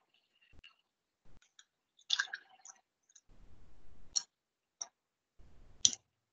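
A few short, scattered clicks coming over a video call, with dead silence between them. The strongest is a small cluster about two seconds in and a sharp click near the end.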